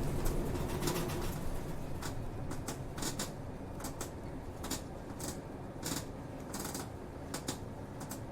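Inside a route bus on the move: the engine drone eases off in about the first second, leaving a quieter running hum. Irregular clicks and rattles from the cabin sound over it.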